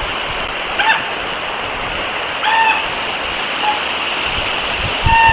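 A few short, arching animal calls, spread out one or two seconds apart, over a steady outdoor hiss.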